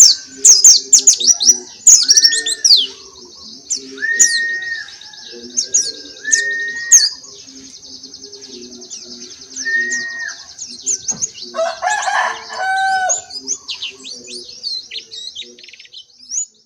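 Pleci (white-eye) songbirds singing with rapid, high twittering chirps, densest in the first few seconds and again near the end. A few longer whistled notes and a lower, pulsing call sound alongside.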